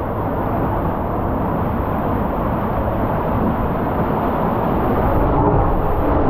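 Water slide ride: a steady, loud rumble of rushing water and a rider sliding down the slide's tube.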